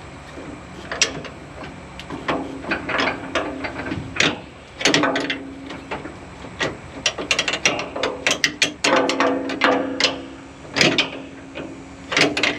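A wrench turning a combine's rotor by hand: irregular runs of metal clicks and clanks, some ringing briefly, as the rotor is worked round so the rotor speed gear will slide into engagement.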